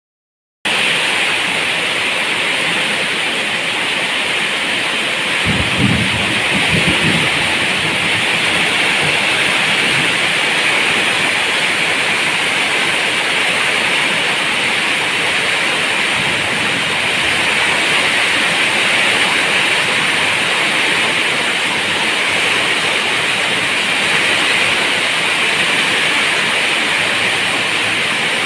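Steady heavy rain, a dense even hiss that starts abruptly after a moment of silence, with a brief low rumble about six seconds in.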